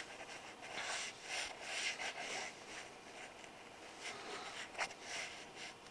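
Faint, irregular rustling and rubbing noises close to the microphone, with a sharper click just before five seconds in.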